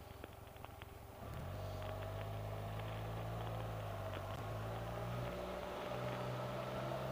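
Engine of a Can-Am Spyder RT three-wheeler running steadily under way. Its low note comes in abruptly about a second in.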